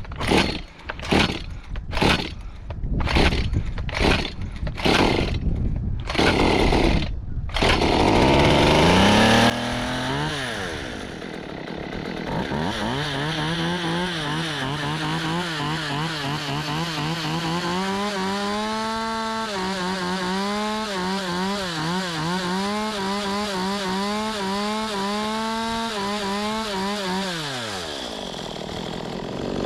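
Stihl MS192 TC two-stroke chainsaw engine revving in a quick series of short throttle bursts, held wide open for a couple of seconds, then running at high speed with a slightly wavering pitch before slowing and stopping near the end. The saw is running well after long storage: the owner finds the carburetor good and the chain oiler working.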